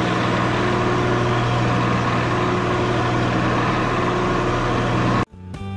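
Shopsmith lathe running steadily with a strong low hum while its duplicator cutter turns a wooden spindle blank round. The sound cuts off abruptly near the end.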